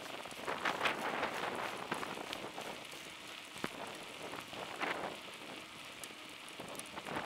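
Wind buffeting the microphone in gusts over a steady crackling hiss of a bicycle rolling along an asphalt road, with scattered small clicks.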